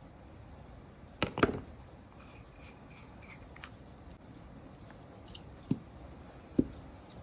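Small hard objects handled on a desk: a sharp clatter of a glass nail-polish bottle and brush about a second in, a few faint ticks, then two short dull knocks near the end as things are set down.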